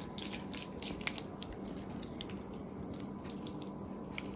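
Bare hands squishing and rubbing a thick, oily spice paste into a whole raw leg of lamb: soft, irregular wet squelches and smacks.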